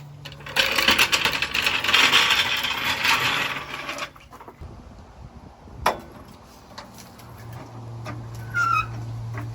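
A power tool runs in a loud rattling burst for about three and a half seconds, then a single sharp click, with a steady low hum starting near the end.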